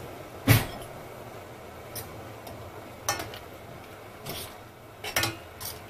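A metal spoon knocking and clinking against a steel cooking pot while stirring: about six short knocks spread over a few seconds, the loudest about half a second in.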